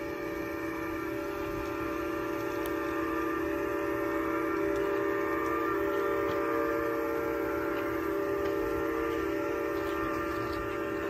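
Steam-locomotive chime whistle sound: a chord of several steady tones held without a break, swelling slightly about halfway through.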